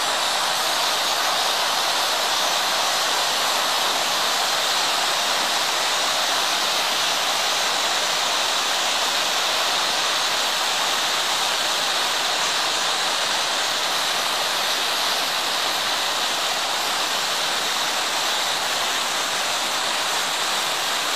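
A steady, even wash of hiss-like noise with no distinct tone or beat, from dozens of logo-remix soundtracks played over one another at once until they blur into noise.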